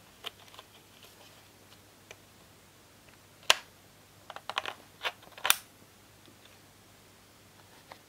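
A laptop DDR3 SODIMM RAM module being pushed into its slot and pressed down until the slot's retention clips snap it in place: a few light clicks, then one sharp click about three and a half seconds in and a quick run of clicks over the next two seconds.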